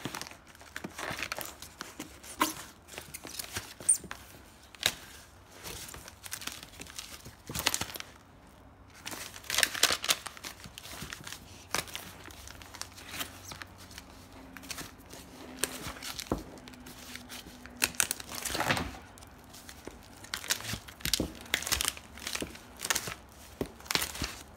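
Vinyl LP records, some in plastic outer sleeves, being flipped through by hand in a plastic tub: irregular rustling and crinkling of card and plastic sleeves, with soft knocks as the records fall against each other.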